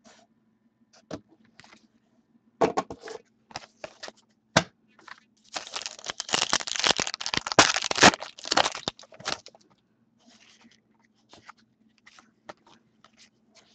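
Foil wrapper of a hockey-card pack being torn open and crinkled by hand. A few sharp crinkles come first, then a dense tearing rustle for about four seconds, then faint handling of the cards.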